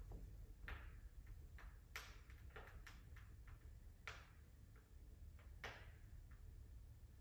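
Wood fire in a fireplace crackling faintly, with irregular sharp pops over a low steady rumble.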